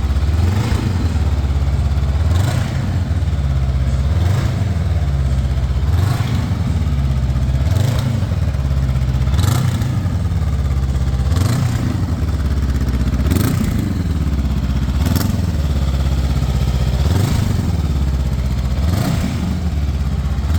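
Honda NX500's parallel-twin engine, fitted with a REMUS aftermarket exhaust, revved in short blips about every two seconds from a steady idle, each rev rising and falling back.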